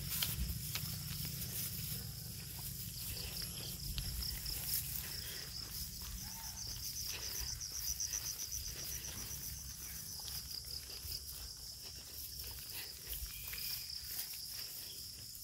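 Insects trilling steadily in a high, pulsing chorus, with footsteps on a concrete road and a low rumble underneath.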